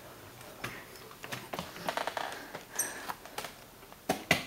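Scattered small clicks and knocks at an irregular pace, with a brief high squeak about three seconds in and two louder knocks close together near the end.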